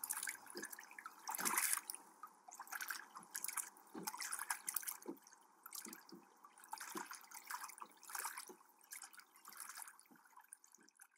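Water splashing and trickling gently in small, irregular splashes that slowly fade away.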